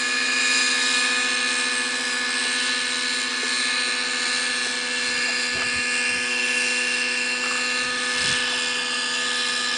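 Align T-REX 600 Nitro Pro radio-controlled helicopter in flight, its two-stroke glow-fuel (nitro) engine and rotors running with a steady, even-pitched whine.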